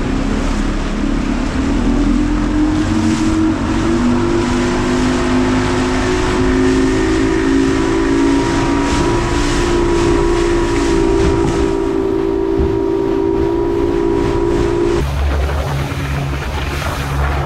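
Boat's outboard motor accelerating: its droning note climbs slowly and steadily as the boat gets under way, then drops suddenly to a lower, steadier note near the end.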